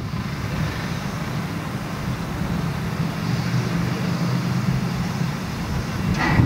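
Hv3 steam locomotive No. 995 standing under steam, giving a steady low hum, with a short hiss near the end.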